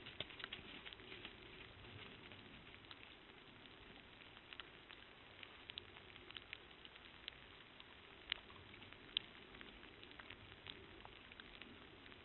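Light rain falling: a faint steady patter with scattered, irregular sharp drip ticks.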